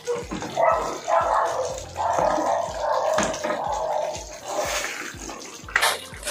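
Thick caldereta sauce bubbling and popping as it simmers in a wok, with a low even pulsing underneath. Near the end a metal spoon clatters against the pan as stirring begins.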